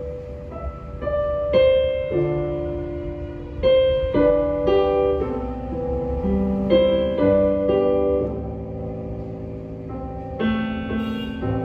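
Yamaha YDP165 digital piano playing a slow piece: chords and melody notes struck every second or two and left ringing.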